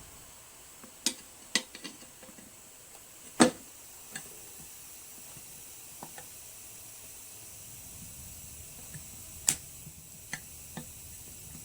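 Scattered sharp clicks and knocks of hands and tools working a small 14x4.50-6 tire on its rim while breaking the bead, the loudest knock about three and a half seconds in and another about nine and a half seconds in.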